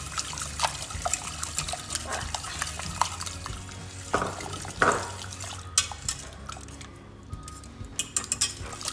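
Wire whisk beating eggs into cream sauce in a metal pan, the wires clicking quickly and unevenly against the sides, with a couple of louder knocks midway.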